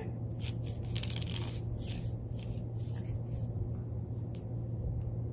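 Soft scattered rustles and taps of a baby's hands and body moving on a foam play mat, with a denser patch of rustling about a second in, over a steady low background hum.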